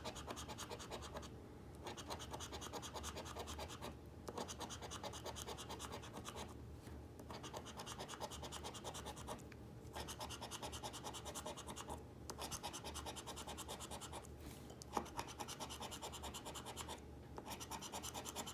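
A flat metal scratcher scraping the silver latex coating off a paper lottery scratch-off ticket in quick, rapid strokes, with brief pauses every two to three seconds.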